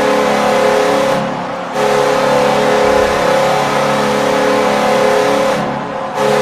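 NHL-style arena goal horn blowing long, steady blasts after a touchdown. The horn briefly fades and restarts about a second and a half in and again near the end.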